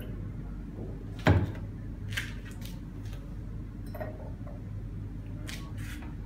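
Lab glassware handled on a bench: one sharp knock about a second in, then a few lighter clinks and taps as a glass beaker is lifted off a scale and set on the ceramic top of an electric hot plate, over a steady low hum.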